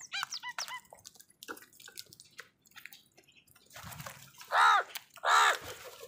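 House crows feeding: light clicks and taps of beaks pecking, then two loud harsh caws close together near the end.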